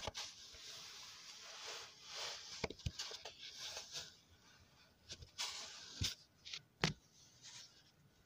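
Faint handling sounds of putty sand, a sandy cloud-slime-like putty, being played with: a soft rustling hiss for the first few seconds, then a few scattered short clicks and pops.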